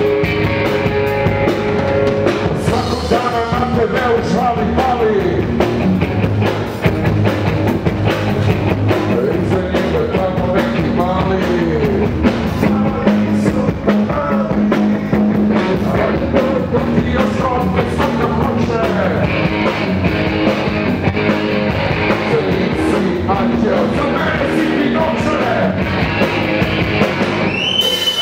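A live rock band playing punk rock on a drum kit, with a singer's vocals over it.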